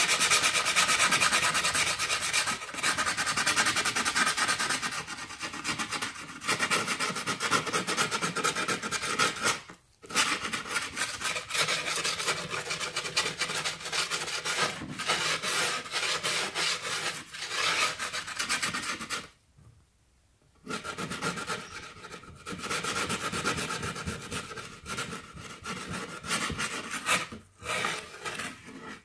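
Grip tape along a skateboard deck's edge being sanded by hand, a continuous gritty rasp of rubbing strokes. It pauses briefly about ten seconds in and for about a second near twenty seconds.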